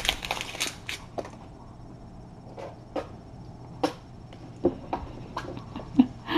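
Scattered light rustling and clicking of hands handling a small item such as paper or a wrapper, with a few brief faint squeaks in the second half.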